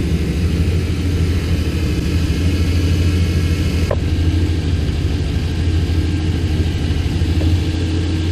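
GMC Sierra 1500's V8 engine idling steadily with a deep, even hum while the freshly refilled cooling system bleeds air. A single light click sounds about four seconds in.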